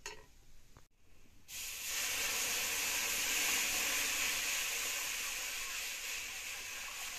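Water poured from a jug into a hot karahi (wok) of frying food, hitting the hot oil and metal with a loud hiss of boiling and steam. The hiss starts suddenly about a second and a half in and slowly dies down.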